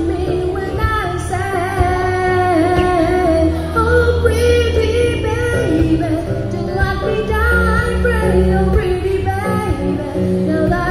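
A female singer singing a pop song live with amplified accompaniment and a steady bass; she holds long notes with vibrato.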